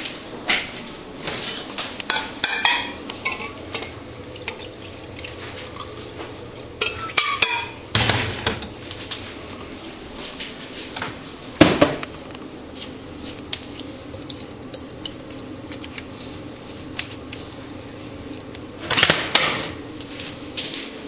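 Dishes and cutlery clattering and clinking, a string of irregular knocks with a few ringing, glassy clinks and several louder clatters spread through.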